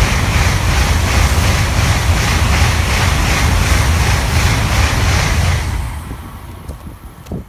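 Tokaido Shinkansen high-speed train passing close by at speed: a loud roar of wheels and rushing air with a rhythmic pulsing as the cars go by. It dies away about six seconds in as the last car passes, and a short click follows near the end.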